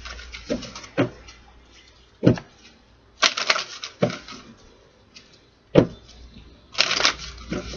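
A deck of oracle cards being shuffled and handled, with two short runs of rapid card clicking and a few single sharp taps or slaps of cards on a table.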